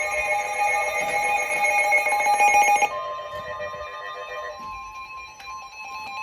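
NOAA Weather Radio 1050 Hz warning alarm tone: a single steady electronic tone that starts about three seconds in and holds. It is the alert that comes before a broadcast warning. Before it, a cluster of music-like electronic tones sounds.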